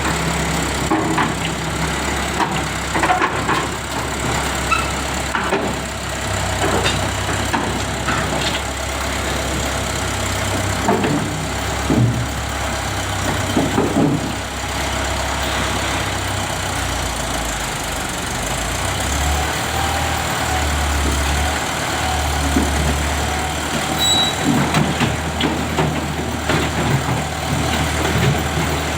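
Heavy diesel engine running steadily, its low drone shifting in pitch about two-thirds of the way through, with scattered knocks and clanks over it.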